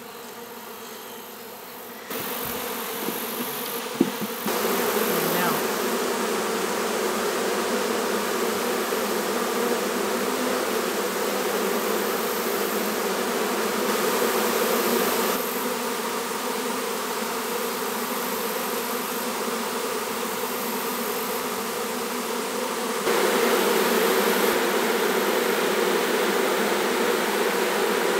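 A swarm of honeybees buzzing: a dense, steady hum that jumps abruptly in loudness at a few points. There is one sharp click about four seconds in.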